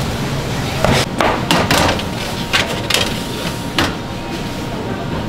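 A metal baking tray being handled and slid into a convection oven: a series of sharp knocks and clatters over a steady background hum.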